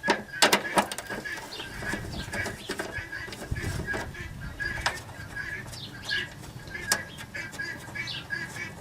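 Scattered sharp clicks and knocks of hand tools and parts being handled, loudest just after the start, with birds chirping in the background.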